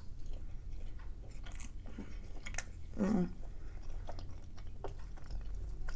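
Close-up chewing of battered orange chicken, with small wet smacks and crunchy clicks. A short hum of the voice comes about three seconds in.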